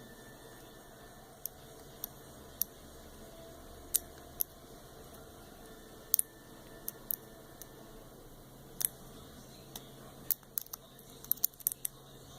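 Small sharp metallic clicks and ticks of a lock pick and tension wrench working the spool pins inside a Master Lock M930 padlock, spaced irregularly with a quick cluster near the end.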